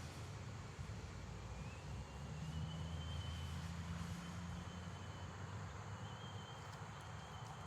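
Low, steady engine rumble, with a thin high whine that rises in about two seconds in and comes and goes.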